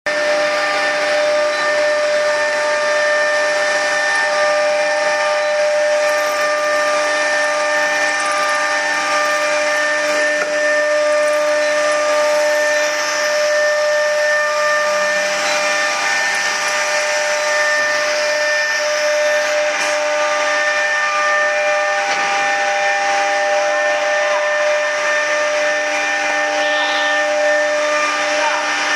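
Spindle of a CC-MS1325AC automatic-tool-change CNC router running at a steady speed without cutting: a steady high whine of several held pitches over a hiss.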